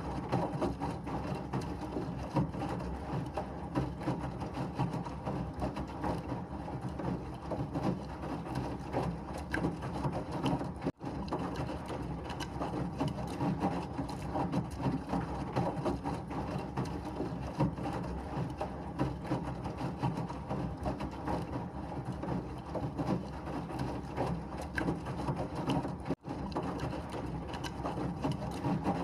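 Washing machine running with a steady, even mechanical whir and rattle, used as white noise. It cuts out for an instant twice.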